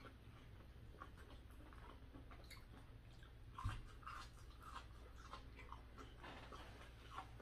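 Faint chewing and small mouth clicks of people eating roasted okra, with one louder thump about three and a half seconds in.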